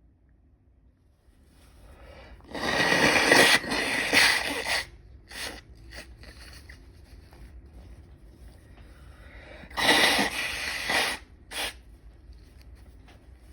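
A person sneezing loudly twice, several seconds apart. Each sneeze is a harsh blast of a second or two, followed shortly by a shorter burst.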